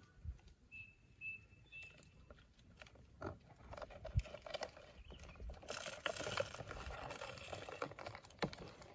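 Soft handling sounds of a clear plastic food container and its lid in grass: scattered clicks and scrapes of fingers on plastic, turning into denser rustling and crinkling from about six seconds in.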